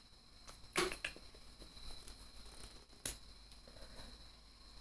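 Two soft clicks, about a second in and again after three seconds, with a few fainter ticks, over quiet room tone with a faint steady high whine.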